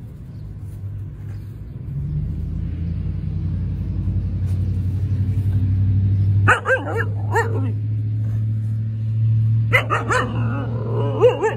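Dogs at play: a steady low rumble grows louder over the first few seconds, then two spells of high, wavering yips and whines come about six and ten seconds in.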